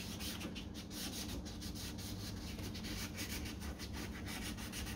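Wet-and-dry sandpaper (400 grit) rubbed by hand in quick back-and-forth strokes over the top of a plastic headlight lens, a steady scratchy rub. It is the coarse wet-sanding stage that cuts back the frosted, yellowed surface so a clear coat will stick.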